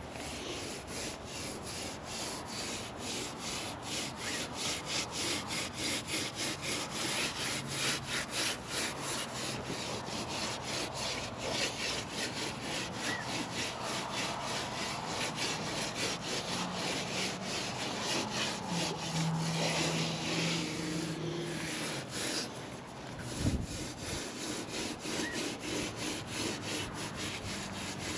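A damp sponge scrubbing fresh mortar on a stone fountain basin, in steady rhythmic strokes about two a second, smoothing the mortar to a sponged finish. One dull knock a few seconds before the end.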